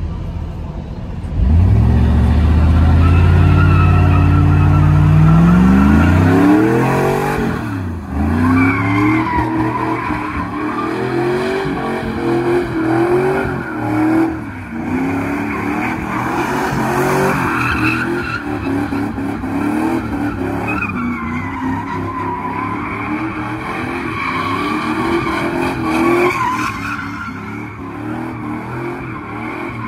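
Pickup truck doing a burnout. The engine revs up hard, climbing in pitch for the first several seconds, then holds high revs that rise and fall as the truck spins in circles, with the rear tyres squealing against the pavement.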